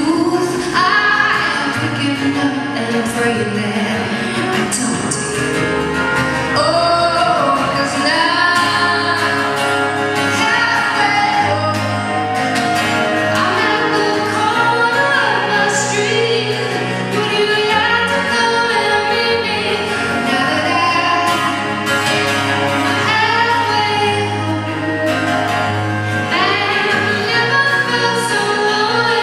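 A woman singing a song live, accompanying herself on acoustic guitar.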